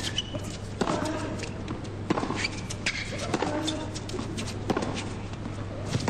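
Tennis rally: racket strikes on the ball about once a second, several followed by a short grunt from the hitting player.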